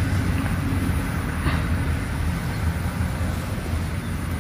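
Steady low rumble of outdoor background noise, with a faint tick about one and a half seconds in.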